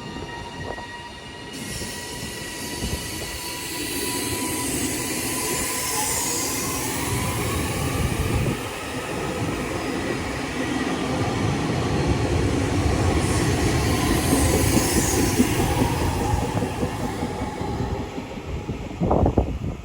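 A train running along the track through the station, growing louder to a peak and then easing off, with wheel squeal and a whine that rises in pitch.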